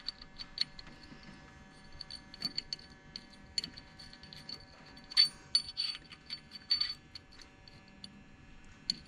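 Irregular small metallic clicks and clinks of a steel hex key knocking and turning in the holes of an aluminium adjustable cam gear, some with a brief high ring, the loudest about five and seven seconds in.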